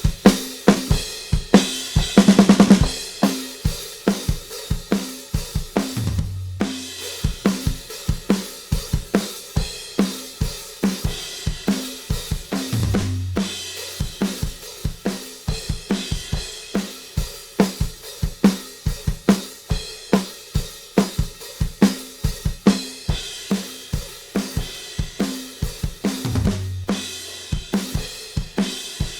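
A recorded drum kit with kick, snare, hi-hat and cymbals plays a steady beat on a drum bus through a Z&H Designs 1178 compressor/limiter. A quick fill of rapid drum strokes comes about two seconds in.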